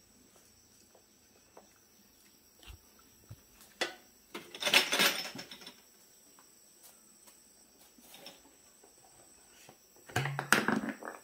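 Scattered small knocks and scuffs from a baby monkey clambering about. About four seconds in comes a loud burst of plastic-bag crinkling lasting a second or two, and near the end a cluster of knocks and scraping as the monkey pushes a thermos flask across the floor.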